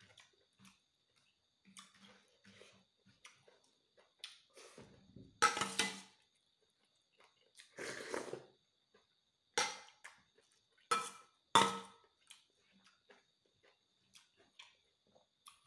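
Close-up eating sounds: wet chewing and small mouth clicks, broken by about five louder slurps and sips, the longest a few seconds in and another about halfway, as broth and insect larvae are taken from a spoon.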